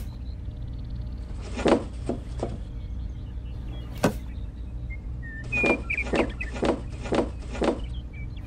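Light clacks of small drink cans being set down into a plastic toy train wagon: scattered taps, then a run of about five from a little past halfway, over a steady low hum.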